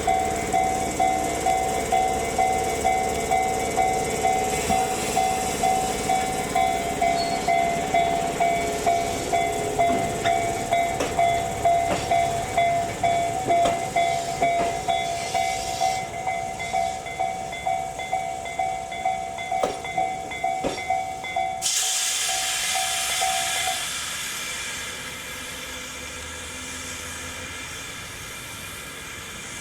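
Railway level-crossing warning bell ringing in an even two-tone rhythm, about two strikes a second, while a train runs by with a few sharp clicks. The bell stops about three-quarters of the way through, leaving a steady hiss of train noise.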